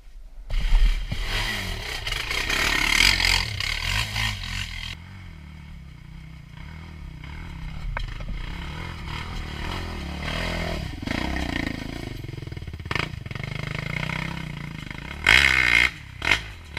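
Sport ATV (quad) with an aftermarket Big Gun exhaust running on a trail, its engine note rising and falling with the throttle. There are scattered knocks, and a hard rev near the end.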